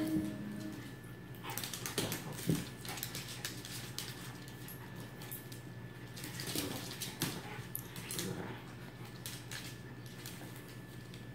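A Shih Tzu and a Lhasa Apso play-wrestling on a wooden parquet floor: scattered clicks and scuffles of claws and paws on the wood as they grapple, with a brief dog vocalisation at the very start.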